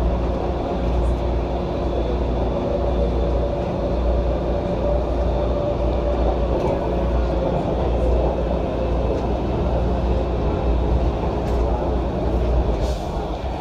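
Washington Metro railcar running at speed, heard from inside the car: a steady low rumble of wheels on rail with a steady hum over it. A short hiss rises near the end.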